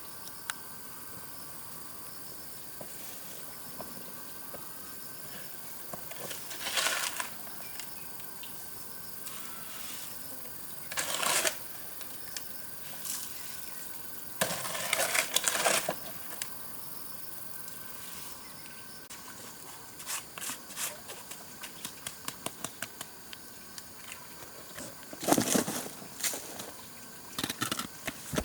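Scattered clattering and knocking of hard objects being handled, in short bursts with a run of quick clicks, over a steady background hiss with faint steady tones.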